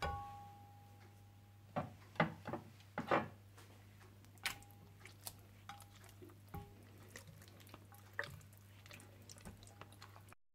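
Hands rubbing a wet yogurt-and-spice marinade into a whole chicken, giving scattered soft squelches and small slaps at irregular intervals.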